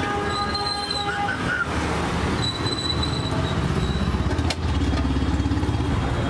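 A motor vehicle engine running in street traffic. Its low rumble grows louder and pulses evenly about halfway through.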